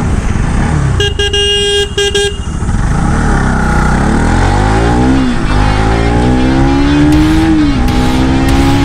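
A vehicle horn sounds in two short beeps about a second in. Then a motorcycle engine accelerates hard through the gears, its pitch climbing and dropping back at two upshifts.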